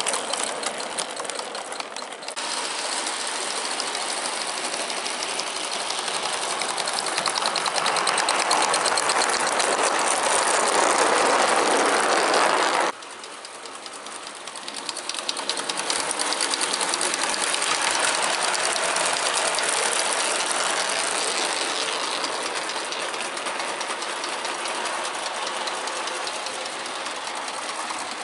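Gauge 1 live-steam locomotive running with its train on a garden track: a rapid beat of steam exhaust mixed with the clatter of wheels on rail. It grows louder as the train approaches and drops off sharply about 13 seconds in, then builds again and slowly fades as the train moves away.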